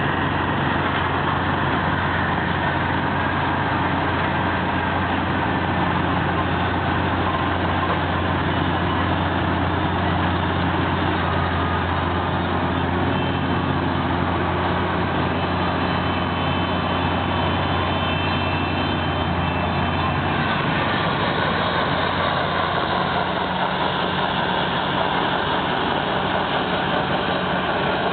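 Engine of farm machinery running steadily, with a deep hum that changes about twenty seconds in.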